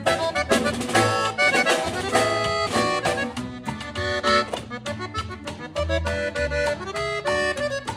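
Background music: an instrumental passage of an accordion-led Latin song, with a pulsing bass beat.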